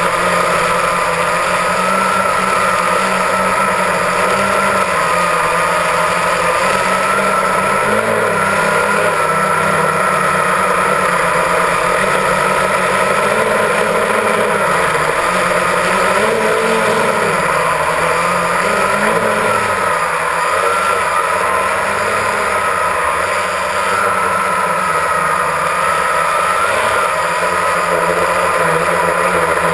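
Multirotor drone's electric motors and propellers running steadily, heard loud and close from the aircraft itself, the pitch wavering up and down every few seconds as the motors change speed.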